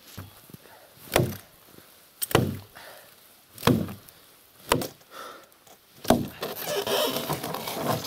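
An axe chopping a dry, dead tree trunk lying in the snow: five solid strikes a little over a second apart, with a rougher stretch of noise near the end.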